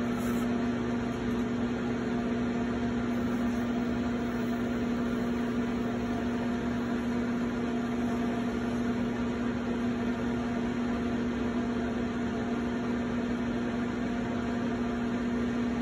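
Electric potter's wheel running at a steady speed: a steady motor hum with one strong low tone over a faint hiss.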